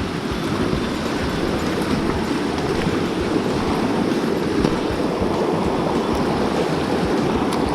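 Rushing water of a stream: a steady, even noise.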